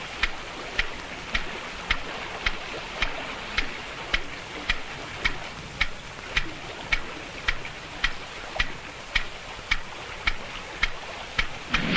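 Sharp, regular ticking, about two ticks a second, over a steady hiss.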